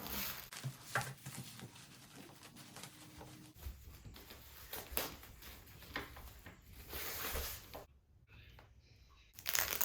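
Rustling and crinkling of packaging being handled as a handbag is unwrapped, with scattered small taps and clicks. A longer rustle comes about seven seconds in, and a louder one near the end.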